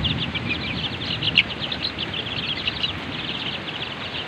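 A pen of young chicks peeping constantly, many quick high chirps overlapping, over a steady hiss of heavy rain and wind.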